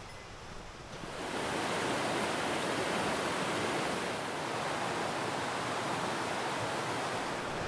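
Rushing water of a mountain stream: a steady rush that gets much louder about a second in, then holds.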